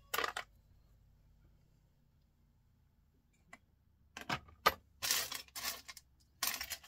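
Small pieces of electronic scrap, plastic and metal parts, clicking and rattling as they are picked through and sorted by hand on a workbench. A brief rattle at the start, a few quiet seconds, then a run of sharp clicks and clatters from about four seconds in.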